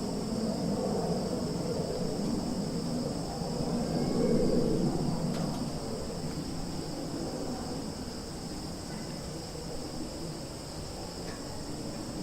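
Summer forest ambience: a steady high-pitched chorus of crickets and other insects over a low rumbling background, with a few faint short chirps.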